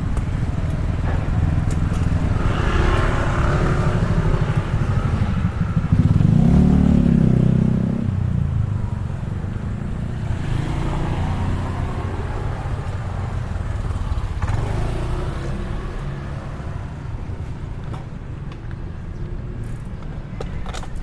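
Road traffic heard from a bicycle on the street: a steady low rumble of engines and tyres. A motor vehicle passes close about six seconds in, the loudest moment.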